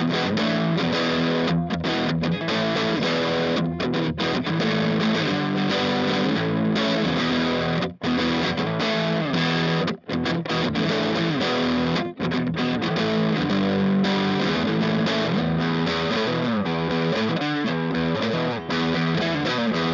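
Electric guitar played continuously through a small Orange amplifier: a 1980 Greco EG600 Les Paul Custom copy on its neck pickup. The playing breaks off briefly about eight, ten and twelve seconds in.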